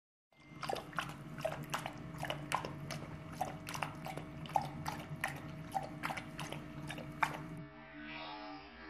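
A dog lapping water from a stainless steel bowl: quick, wet, splashy laps about three a second. About a second before the end the lapping stops and a duller, steadier sound takes over.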